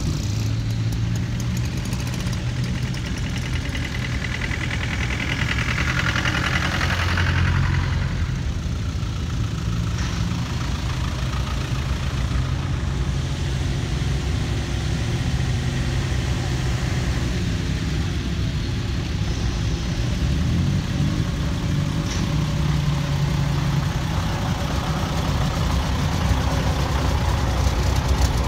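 Engines of vintage military vehicles driving slowly past one after another: a military four-by-four and then canvas-topped army trucks. A louder pass comes about seven seconds in, and a truck passes close near the end.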